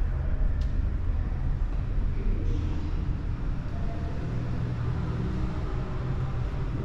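Steady low rumble with no clear pitch, with a faint click about half a second in.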